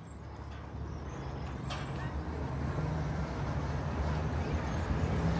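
City street ambience, mainly a steady low rumble of road traffic with engine hum, fading in and growing louder. A single faint tick about a second and a half in.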